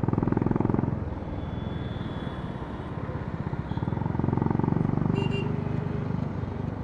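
Honda CB350 RS's single-cylinder engine and exhaust pulsing while riding, louder on the throttle in the first second and again from about four seconds in, easing off between.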